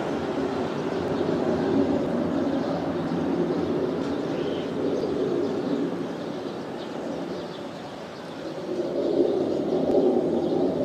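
Pratt & Whitney F135 turbofan of an F-35A on landing approach, heard as a distant jet rumble that eases off around eight seconds in and swells again near the end.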